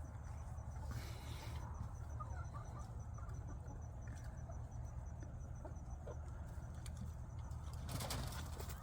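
A cricket chirping in a steady train of rapid, even, high-pitched pulses over a low steady rumble, with a brief rustle about a second in and again near the end.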